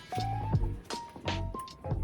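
Background music with held bass notes and a regular percussive beat.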